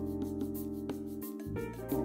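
Background music: sustained keyboard chords over a light, steady beat.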